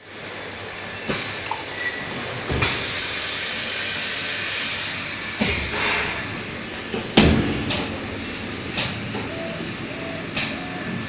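Coating spray machine hissing steadily as it sprays, with sharp mechanical knocks every second or two, the loudest about a third of the way in and again past halfway.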